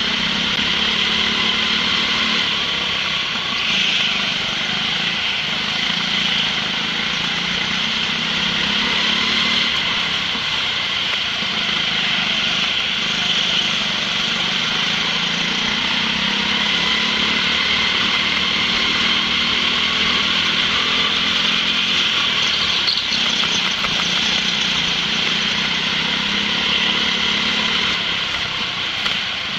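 Go-kart's small petrol engine running hard on a lap, heard from on board, its drone rising and falling a little with the throttle, with other karts' engines running close by.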